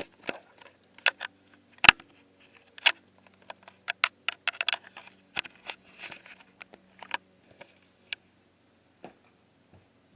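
Loose plastic Lego bricks clicking and clattering as they are handled. There is a quick run of sharp clicks for about the first seven seconds, then a few scattered ones.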